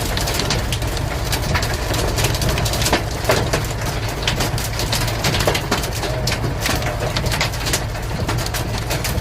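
Heavy hail pelting down: a dense, irregular clatter of hailstones striking hard surfaces, many sharp hits a second over a steady low rumble.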